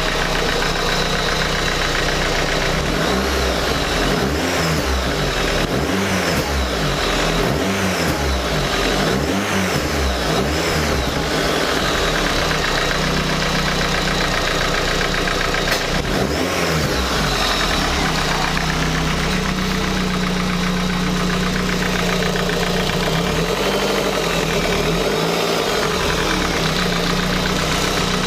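Rover Metro's 1.8 K-series VVC four-cylinder engine running with the car stationary, blipped up and back down several times in quick succession, once more a few seconds later, then settling to a steadier run.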